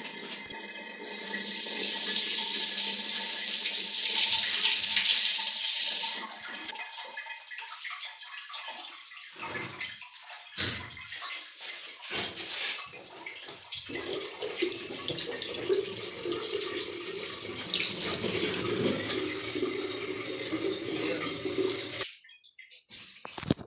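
Water running from a newly fitted bathroom fixture. A strong hiss of spray for the first few seconds, then an uneven splashing flow that stops suddenly near the end.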